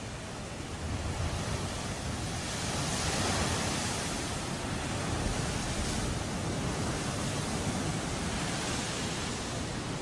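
Heavy storm surf breaking and washing over shoreline rocks: a steady rush of water noise that swells about a second in and is loudest around three to four seconds.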